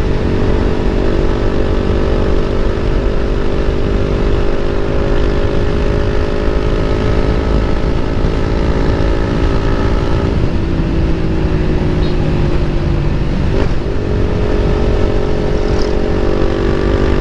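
Motorcycle with an Akrapovic aftermarket exhaust running at a steady cruise under way, with wind rumble on the microphone. The engine note holds nearly steady and eases off briefly about ten seconds in and again near fourteen seconds.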